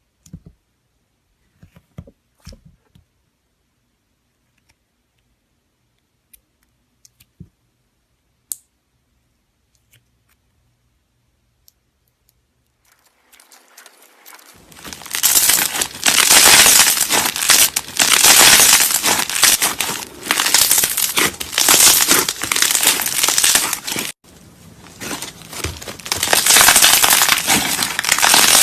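Slime being handled: a few faint sticky clicks and pops, then from about halfway a loud, dense crackling and crinkling that breaks off briefly near the end.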